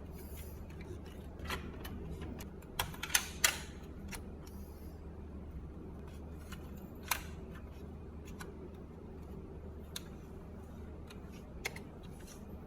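Scattered light clicks and taps of small hard parts being handled, with a cluster of sharper clicks about three seconds in and another single click about seven seconds in, over a steady low hum.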